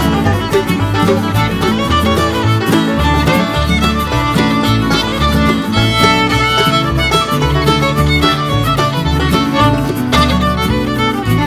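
Background instrumental music with fiddle over a steady bass line, in a bluegrass-country style.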